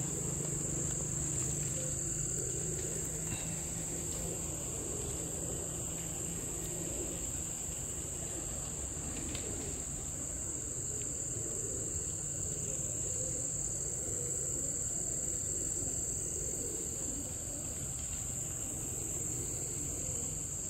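Crickets trilling steadily, one continuous high-pitched chorus, over a steady low hum.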